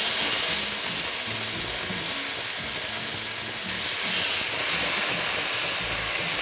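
Chicken breasts frying in hot olive oil in a stainless steel pan, a steady sizzle while they are turned over with tongs.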